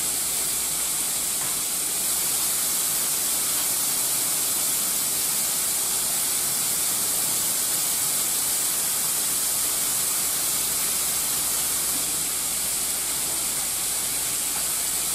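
Raw ground beef sizzling steadily in a hot nonstick skillet, an even frying hiss that holds at one level throughout.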